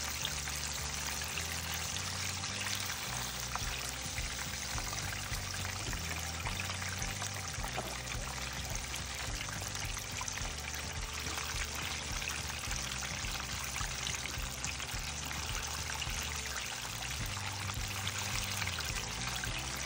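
Chicken pieces deep-frying in hot oil: a steady sizzle of bubbling oil with many small crackling pops, over quiet background music.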